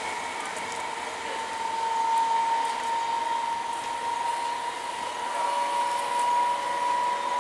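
Electric multiple unit local train pulling away, its traction motors giving a steady whine that climbs slowly in pitch over a hiss of running noise.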